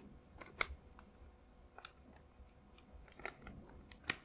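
Scattered sharp clicks and taps of the Novritsch SSP-1 gas blowback pistol's slide and frame parts being handled and fitted together, with a louder pair of clicks near the end.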